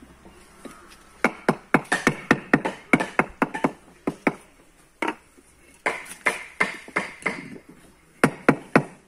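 Wooden mallet striking concrete interlock paving blocks to seat them in their bed, in three runs of quick sharp blows, several a second, with short pauses between.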